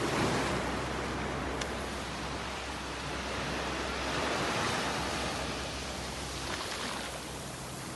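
Surf washing onto a sandy beach: a steady rushing noise that swells near the start and again around four to five seconds in.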